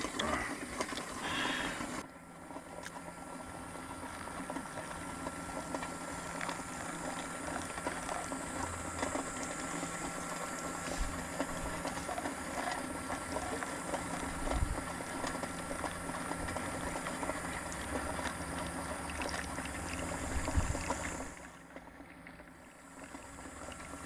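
Hot water poured in a thin stream from a small metal cup into a pour-over coffee dripper, trickling over the grounds.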